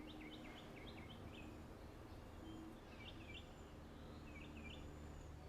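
Faint bird chirping: a few quick runs of short, high chirps over a quiet background hiss.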